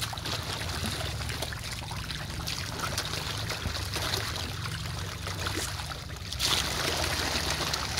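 A packed mass of fish thrashing at the water's surface: a dense, continuous patter of small splashes that grows louder about six seconds in.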